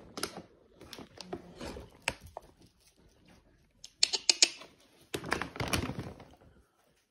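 French bulldog puppies' claws pattering on a hardwood floor, with a plastic dog-food bag crinkling in short bursts. The loudest bursts come about four seconds in and again just after five seconds.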